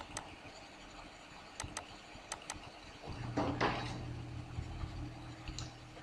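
Computer mouse clicks, several in quick pairs like double-clicks, with a short noisy rush about halfway through and a faint low hum starting about halfway.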